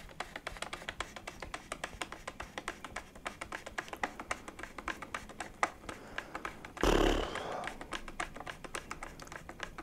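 Rapid small clicks and taps of an angled forward grip's clamping screw being worked in and tightened against the airsoft rifle's lower rail, with hands handling the rifle. About seven seconds in there is a louder rustle with a low thump.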